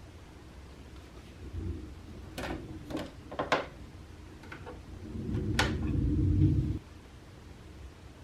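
Household handling sounds: a dull thump, then several sharp clicks and knocks, and a low rumble lasting about two seconds near the end.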